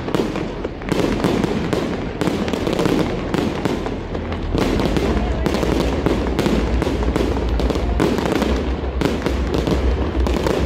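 Aerial fireworks display: a continuous barrage of bangs from shells bursting overhead, several a second with no pause.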